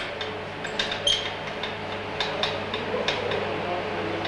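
Hydroelectric generator's field rheostats clicking irregularly, a few clicks a second, as their contact arms are turned across the contact studs to raise the excitation, over the steady low hum of the running generator set.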